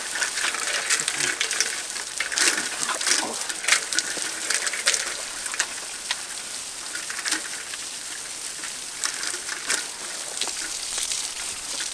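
Water gushing out of the open end of a black plastic irrigation pipe and splashing onto the ground in a steady hiss, with a few sharp knocks and ticks.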